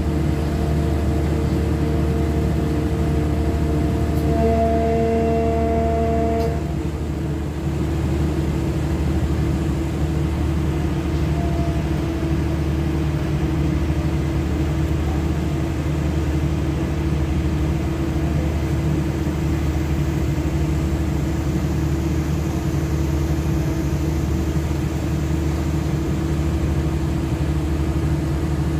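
Heavy diesel machinery running steadily, a low, even drone with a few fixed hum tones; an extra set of higher steady tones cuts off about six and a half seconds in.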